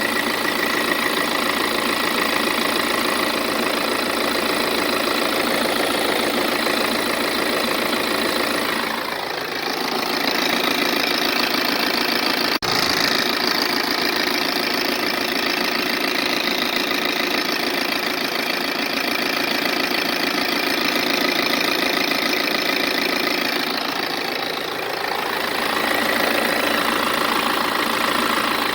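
BMW B47 four-cylinder turbodiesel engine idling with a noise the owner cannot identify. The tone of the running changes about nine seconds in and changes back about twenty-five seconds in, and there is a single sharp click about twelve seconds in.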